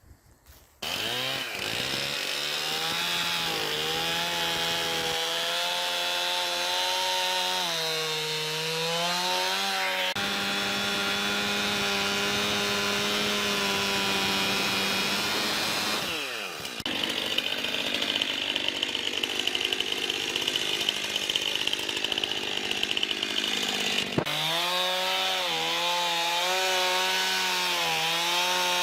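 Stihl MS 271 Farm Boss two-stroke chainsaw running at full throttle while cutting through firewood logs, its pitch sagging and recovering as the chain bites into the wood. It starts suddenly about a second in, and its revs drop briefly about midway before it picks back up.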